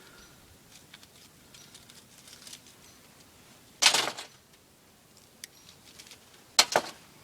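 Pieces of broken window glass clinking and clattering, twice: a short clatter about four seconds in and a few sharp clinks near the end, with faint handling noise between.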